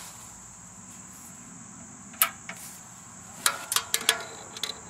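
Steady high-pitched chirring of crickets, with one sharp click about two seconds in and a quick run of clicks and taps about a second later from handling near the engine before it is started.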